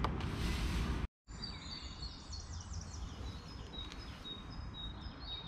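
Small songbirds singing: a rapid trill of high chirps, then a few thin, steady whistled notes, over a steady low rumble. The sound drops out briefly about a second in.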